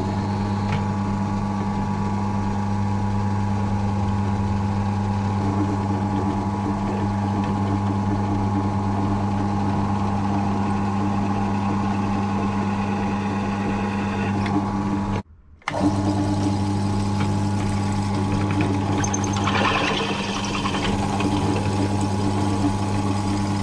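Bench drill press running with a steady motor hum while its bit is fed down into a metal bar to drill a Tommy bar hole. The sound drops out for about half a second about two-thirds of the way through. Near the end the cutting gets scratchier as the bit bites.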